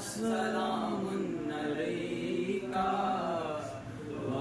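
Men's voices chanting an Urdu salaam to the Prophet together, in long drawn-out melodic lines, with a short pause for breath near the end.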